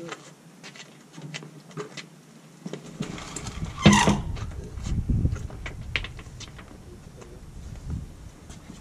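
Heavy steel Cannon gun safe being tipped down onto a wheeled dolly: a loud clunk about four seconds in as it comes down onto the dolly, then a low rumbling with a few knocks as it settles.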